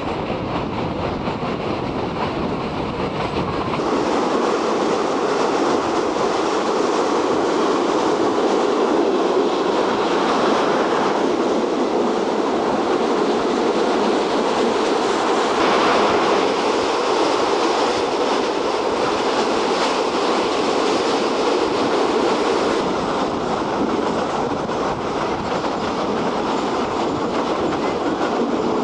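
State Railway of Thailand local passenger train running steadily, heard from inside a third-class carriage through its open window: wheels and rails rattling, with the noise changing character about four seconds in.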